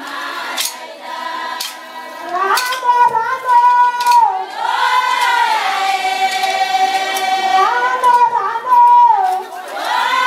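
A group of women singing together, with long held notes that slide up and down in pitch. A few sharp knocks sound in the first seconds.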